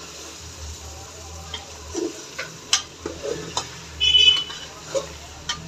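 A slotted metal spoon stirring chicken and potato pieces in thick masala in a pot, with a light sizzle underneath and several sharp clinks of the spoon against the pot. There is a brief high squeak about four seconds in.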